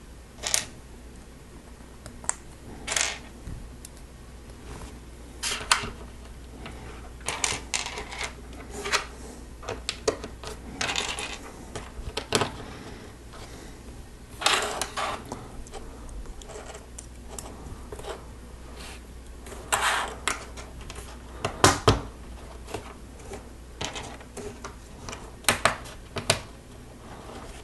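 Loose plastic Lego Technic pieces clattering and clicking as they are sifted through and handled, in irregular clicks and short rattles.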